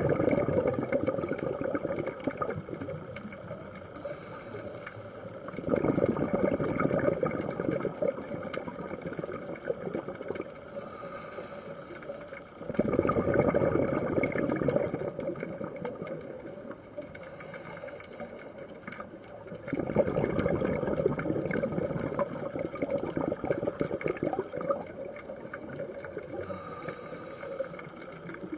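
Scuba diver breathing through a regulator, heard underwater: a short high hiss as a breath is drawn, then several seconds of loud, rough bubbling as it is exhaled, repeating about every seven seconds, four breaths in all.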